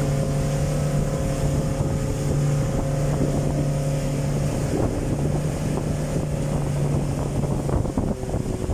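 Motorboat engine running steadily at speed, with wind buffeting the microphone and the rush of water along the hull. Near the end the engine's note drops lower.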